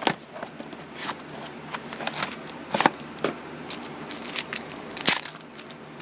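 A pack of hockey cards being opened by hand: the wrapping crinkles and tears in scattered sharp crackles, with the loudest right at the start and about five seconds in.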